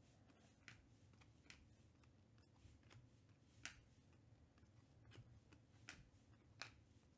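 Near silence with a handful of faint, irregular clicks of Panini Prizm trading cards being slid off the front of a stack and tucked behind it, one card at a time.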